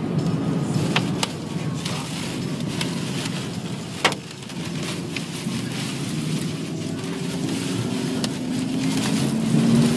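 Steady road and wind noise inside a moving car, with scattered sharp impacts of hail and debris striking the car, the loudest about four seconds in.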